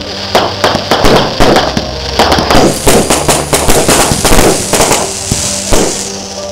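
Fireworks going off in an irregular run of sharp bangs and crackles.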